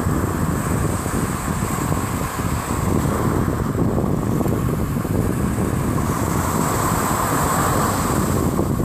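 Ocean surf washing onto a beach, with heavy wind buffeting the microphone; the wash of a wave swells up near the end.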